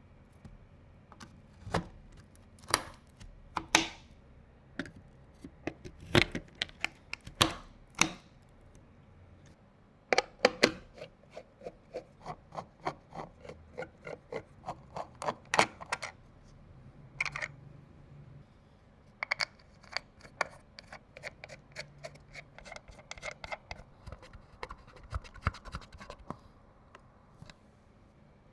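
Hands handling PC parts and packaging: irregular sharp clicks and taps with light scraping, including a quick run of small ticks in the middle.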